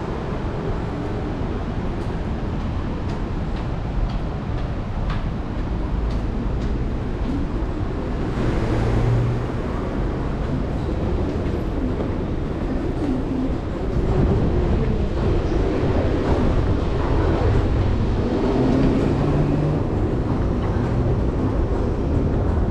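Street traffic, then the steady mechanical rumble and hum of an MRT station entrance and its long descending escalator. The rumble gets louder a little past halfway.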